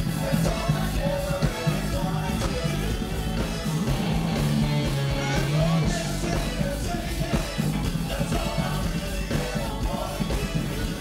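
Live funk band playing, with a prominent electric bass guitar, drums and a voice singing.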